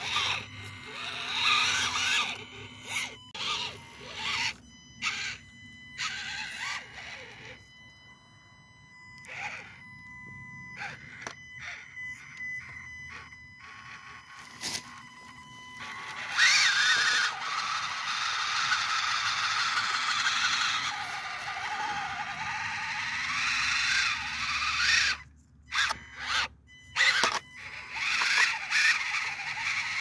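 Axial SCX24 micro rock crawler driving over rocks: its small brushed electric motor and gears whine, rising and falling with throttle, over a steady high electronic whine. Its tires scrape and click on the stone. The motor and gear noise is loudest and busiest in the second half.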